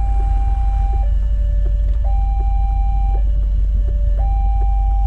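Railway level-crossing warning alarm sounding with the barriers down: an electronic two-tone signal, a higher note and a lower note alternating about once a second. A loud, steady low rumble runs underneath.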